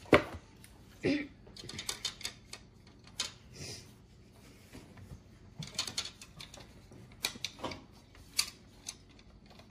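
Light plastic clicks, taps and rattles from the pieces of a plastic plant-growing kit being handled and slotted together, with one sharp click right at the start.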